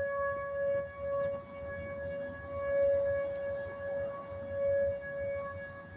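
Outdoor tornado siren sounding a steady single-pitched tone for a statewide test, swelling and fading every second or two.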